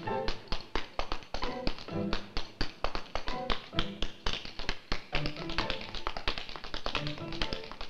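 Rapid tap-dance steps clicking on a wooden stage floor, several a second, to a lively saloon piano tune.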